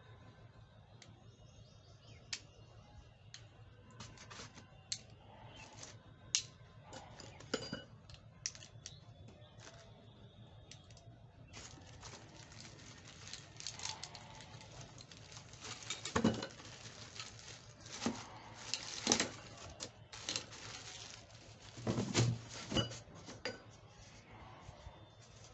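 Small plastic parts clicking and knocking as they are handled, then from about halfway a plastic packaging bag crinkling and rustling as parts are unwrapped, with a few louder knocks.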